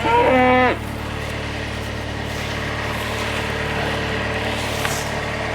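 Tractor engine running steadily, with a loud, brief whine at the very start that rises in pitch, holds and stops sharply under a second in.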